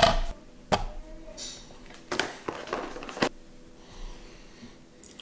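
Handling sounds as bread on a paper towel and a piece of chicken are set on a digital kitchen scale on a wooden cutting board: a few short knocks and taps, the loudest right at the start and others about a second in and around two and three seconds in, with a brief paper rustle.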